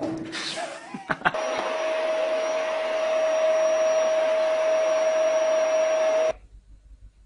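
A steady, even whirring motor noise with a constant hum-tone in it, starting after a couple of knocks about a second in and cutting off suddenly about six seconds in.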